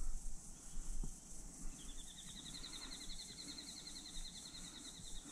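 Waterside ambience: a steady, high, pulsing chorus of insects, joined from about two seconds in by a rapid high-pitched trill of quickly repeated notes. A few low bumps sound in the first second.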